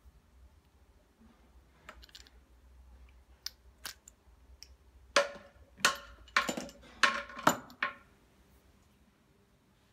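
A run of metallic clicks and clinks from handling brass quick-connect air fittings and a metal air blow gun. A few light clicks come first, then about six louder sharp clinks with a brief ring close together in the second half.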